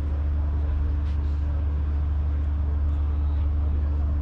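Steady low mechanical drone with a constant hum above it, unchanging throughout.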